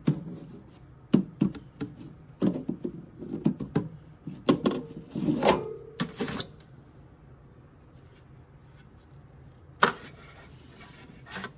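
Irregular clicks and knocks of objects being handled, then quieter from about six and a half seconds in, with one more knock near the end.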